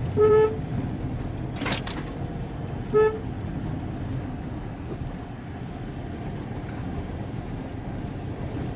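Car horn tooted twice in short beeps, about three seconds apart, over the steady low rumble of the car driving slowly on a rough dirt track, heard from inside the cabin. A short noisy burst comes between the two toots.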